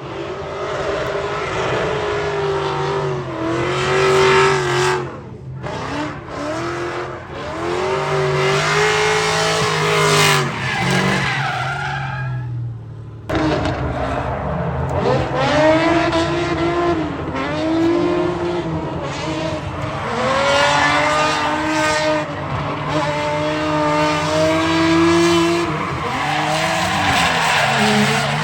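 Car engine revving up and falling back again and again with tyres squealing, as in drifting on a track. There is an abrupt break about 13 seconds in, after which the same kind of revving and tyre noise carries on.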